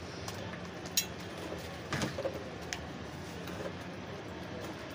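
Kitchen handling sounds while making fufu: flour tipped from a plastic tub into a metal pot and a wooden paddle set into it to stir, with a few sharp knocks about one and two seconds in over a steady low hiss.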